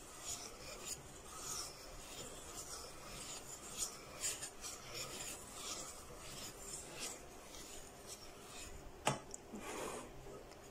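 Wire whisk stirred slowly through thick egg-yolk cake batter in a stainless steel bowl, giving faint, repeated soft scraping strokes. A single sharp click comes about nine seconds in.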